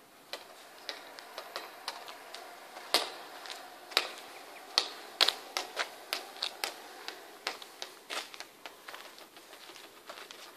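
Footsteps and a ball being kicked and bouncing on asphalt: irregular sharp taps and scuffs, with a few louder knocks about three, four and five seconds in.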